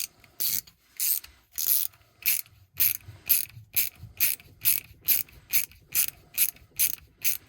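Hand ratchet clicking in short, even strokes, about two a second, as a screw on a faucet stem is tightened; the clicking stops just before the end.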